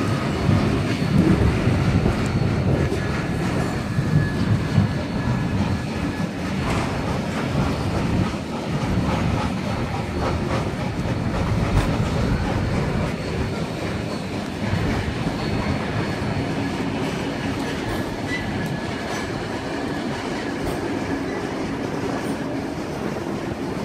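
Heritage passenger carriage rolling out along the track, heard at its open window: a steady rumble of wheels with irregular clickety-clack knocks over rail joints and points, heavier in the first few seconds. A faint thin high whine runs underneath.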